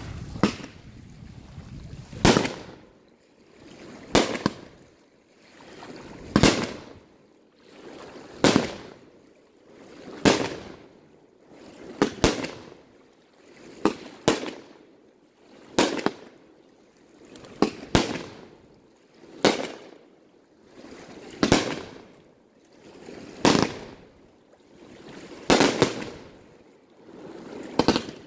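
Aerial fireworks bursting in the sky, a sharp bang roughly every two seconds, about fifteen in all, each with a short swell of noise leading into it.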